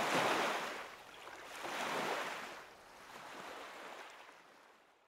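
Water waves washing in, in swells about every second and a half to two seconds, each weaker than the last, fading out near the end.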